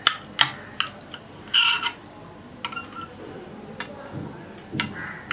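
Knife blade clicking and scraping against a ceramic plate while cutting through a soft, syrup-soaked balish mishti sweet: a string of sharp clicks, with one short scrape about a second and a half in.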